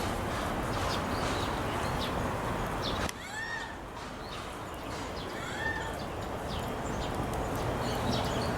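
Black rhinoceros squeaking: short high-pitched squeaks that rise and fall in pitch, clearest about three seconds in and again about five and a half seconds in, with fainter ones between.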